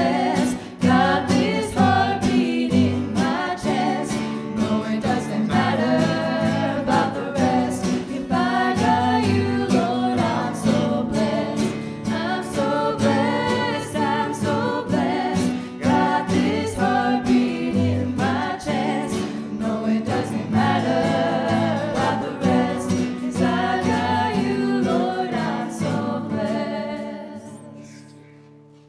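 Church worship band playing a song: several voices singing together over acoustic guitar, drum kit, keyboard and bass guitar, with a steady beat. The song ends near the end, its last chord dying away.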